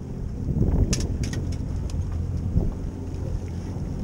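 A boat engine running at idle, a steady low hum, with wind buffeting the microphone and a few light knocks about a second in.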